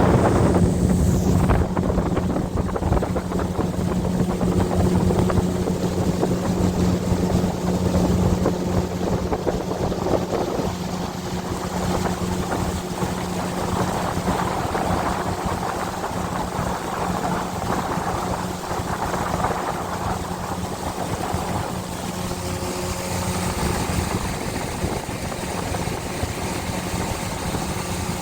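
A boat motor running steadily with a constant hum, with wind noise on the microphone.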